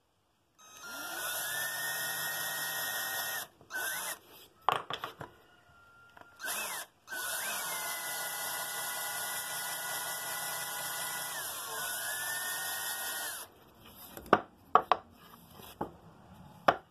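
Handheld electric drill with a small bit drilling angled holes into pine: a run of about three seconds that rises in pitch as it spins up, two brief bursts, then a longer steady run of about six seconds whose whine dips and picks up again near the end. A few sharp clicks and knocks follow.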